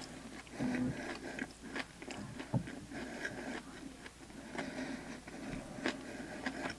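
A person biting into and chewing a fish taco filled with fried sculpin, close to the microphone, with irregular crunches and wet mouth sounds.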